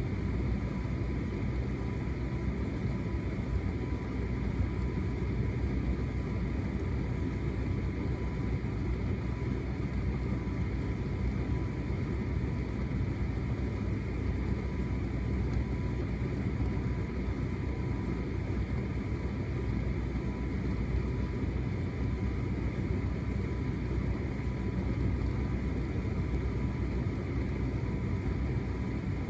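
Hotpoint SUTCD97B6PM tumble dryer running: the motor and fan hum steadily with a thin constant whine while the drum turns the clothes.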